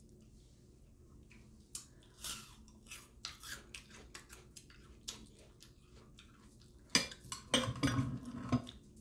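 Close-miked chewing of bread, with small crunchy clicks and mouth sounds. Near the end, a louder few seconds of a metal utensil clattering and scraping against a glass baking dish.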